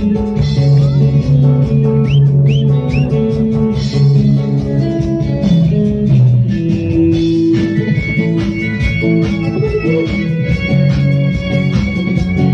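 Live stage band playing a song's instrumental passage: guitar and bass guitar over a steady drum beat.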